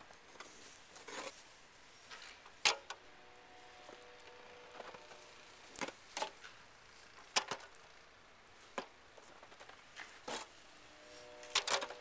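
Snow roof rake being worked along a snow-covered roof, its long pole and head knocking sharply against the roof edge every second or two, with the soft scrape and fall of pulled snow between the knocks.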